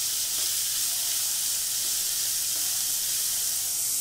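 Finely chopped onions sizzling steadily in hot oil in a kadhai, being sautéed soft over a medium flame.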